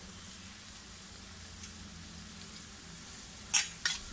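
Okra and carrot stir-fry sizzling faintly in a kadai, with two short sharp clinks about three and a half seconds in.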